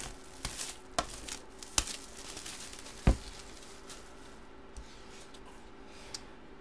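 Hands handling a shrink-wrapped cardboard box, with light crinkling and rustling and a few sharp knocks and taps; the loudest knock comes about three seconds in.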